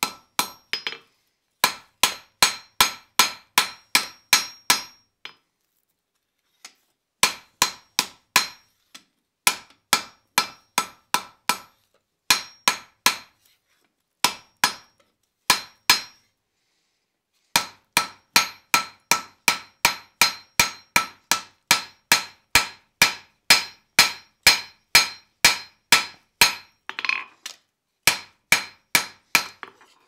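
Hand hammer striking red-hot iron on an anvil, drawing out the flattened arm of a forged cross. The blows come in runs of about two to three a second, each with a bright metallic ring, broken by a few short pauses.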